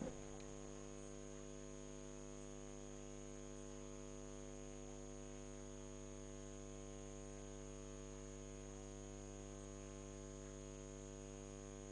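Faint, steady electrical mains hum with a stack of overtones and a thin high whine above it, and nothing else: dead air on the broadcast audio.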